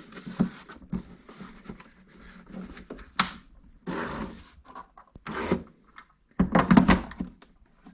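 Irregular plastic knocks, clicks and rattles from handling the coffee machine's removable water tank, with a louder clatter about six and a half seconds in.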